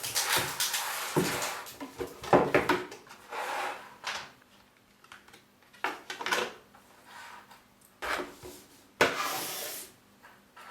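Cardboard box and packaging being handled: irregular scraping and rubbing as a speaker is slid out of its box, with a few knocks in between.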